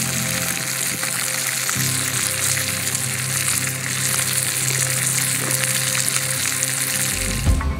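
Brook trout sizzling in a frying pan: a steady, dense hiss that starts abruptly and stops just before the end, under background music. A short low thump comes near the end.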